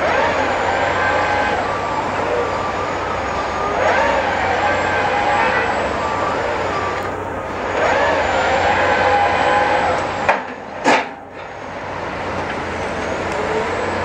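Bauer BG 25 piling rig's diesel engine and hydraulics running, with a whining note that rises and holds three times, about every four seconds. About ten seconds in the sound briefly drops out with two sharp clicks.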